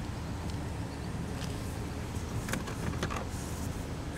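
Car engine idling, a steady low rumble heard from inside the cabin, with a few light clicks about two and a half to three seconds in.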